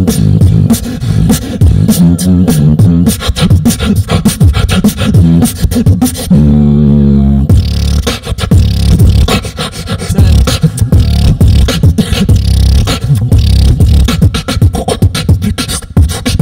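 Solo beatboxing into a cupped microphone: a fast beat of vocal kick, snare and hi-hat sounds. About six seconds in, the beat breaks for a held bass note lasting a second or so, then picks up again.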